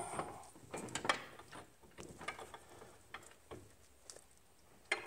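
Irregular metallic clicks and knocks of hand tools and suspension parts being worked during front-end reassembly. The loudest knock comes about a second in, with another sharp one near the end.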